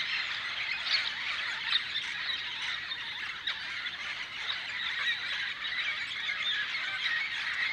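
Many birds calling at once in a dense, overlapping chorus of quick chirps and chattering calls, steady throughout.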